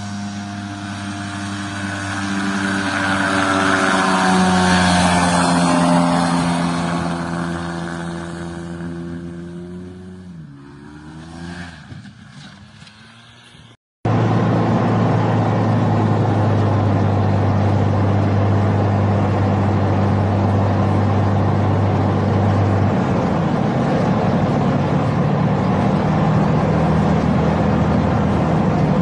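A single-engine light aircraft's propeller engine, heard from the ground as the plane passes: loudest a few seconds in, then fading with falling pitch as it moves away. After an abrupt cut, a light aircraft's engine drones steadily as heard inside the cockpit on approach, and its note changes about two-thirds of the way through.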